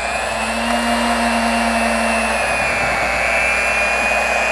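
Electric hand mixer running at a steady speed, its beaters whisking cake batter in a glass bowl, with a steady high motor whine.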